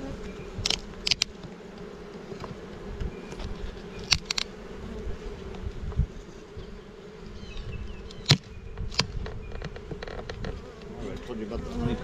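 A honey bee colony buzzing steadily in an opened swarm-trap box, with several sharp metal scrapes and cracks from a hive tool prying at the lid, about a second in, around four seconds and again around eight to nine seconds.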